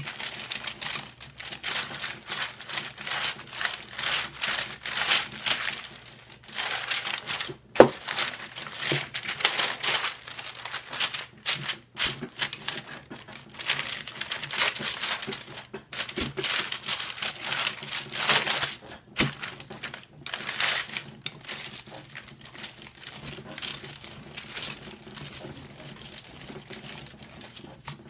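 Parchment paper crinkling and rustling as a rolling pin is pushed back and forth over pie dough between two sheets, in repeated irregular strokes. A single sharp knock about eight seconds in.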